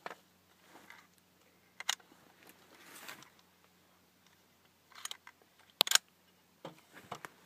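Handling noise from a Cooey 64B .22 LR semi-automatic rifle being picked up and readied: scattered metallic clicks and short rustles, with a sharp click about two seconds in and a sharper double click near six seconds. No shot is fired.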